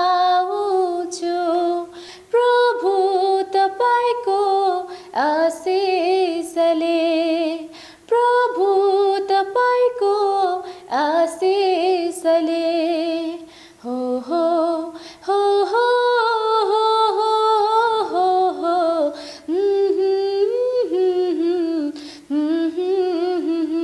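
A woman singing a Nepali Christian song unaccompanied, in phrases of a few seconds with a wavering vibrato on held notes and short breaths between them.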